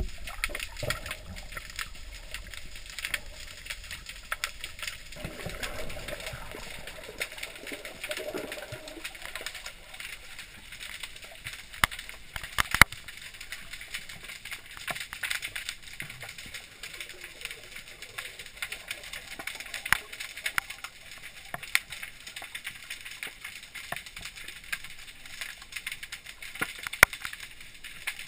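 Underwater sound picked up by a GoPro in its housing: a muffled water hiss with frequent crackling clicks and occasional sharper knocks, and a low gurgling stretch about five to nine seconds in.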